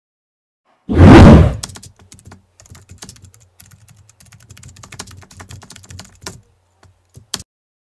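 A short, loud hit about a second in, then a long run of quick, uneven keyboard typing clicks, a typing sound effect, ending with a louder pair of clicks near the end.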